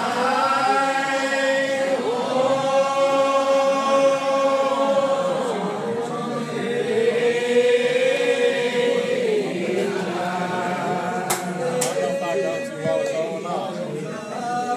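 Congregation singing a lined-out Old Regular Baptist hymn without instruments, in slow unison with long-held notes that slide slowly between pitches. Two brief clicks come about two-thirds of the way through.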